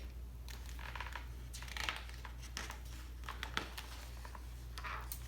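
Soft, scattered paper rustling and crinkling as the pages of a picture book are turned and handled.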